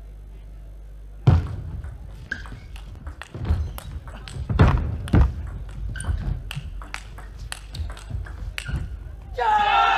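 Table tennis rally: the celluloid ball clicks sharply and in quick succession off the rubber-faced bats and the table. Just before the end a loud shout rises, with the crowd cheering, as the point is won.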